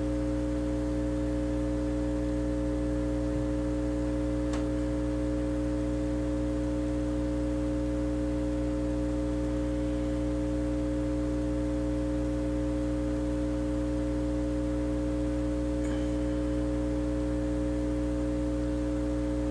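Hot air rework station running, a steady hum with two strong constant tones, while its nozzle melts solder balls through a reball stencil. Two faint ticks come about four seconds in and again near the end.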